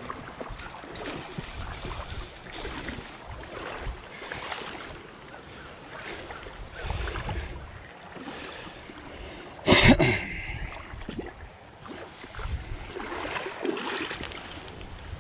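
Creek water rushing steadily, with gusts of wind buffeting the microphone. A sudden loud thump about ten seconds in stands out above the water.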